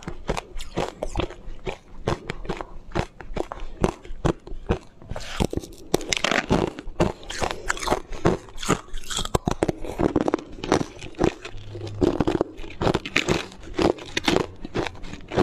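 Crunching and chewing of coloured ice, close up: a quick, irregular run of sharp cracks, several a second, as frozen pieces are bitten off and crushed between the teeth.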